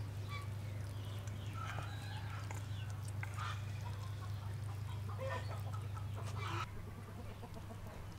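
Scattered short bird calls over a steady low hum; the hum stops suddenly about six and a half seconds in.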